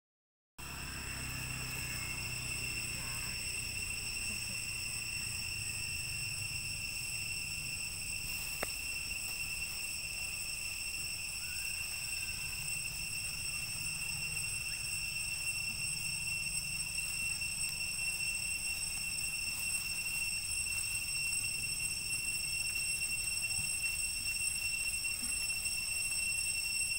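Steady, unbroken high-pitched drone of forest insects, with a low rumble underneath and a single sharp click about eight and a half seconds in.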